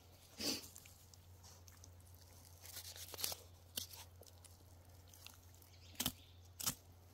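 Knife slicing and hide being pulled away as a black bear's head is skinned: scattered short crackling and tearing sounds, the sharpest two near the end.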